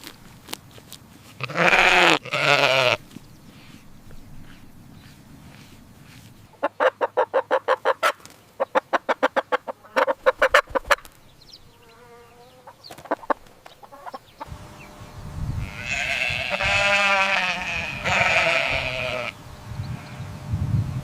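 Chickens clucking in a quick run of short clucks, between two longer drawn-out farm animal calls: one about two seconds in and a longer, quavering one near the end.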